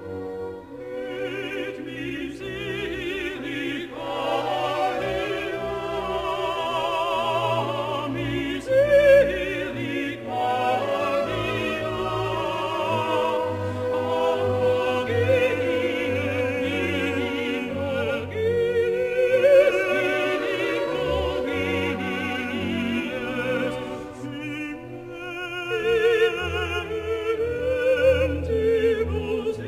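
Classical background music: an operatic singing voice with vibrato over an orchestra.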